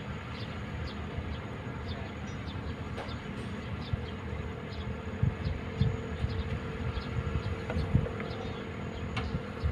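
Kobelco excavator's diesel engine running steadily, with irregular low thuds from about halfway through.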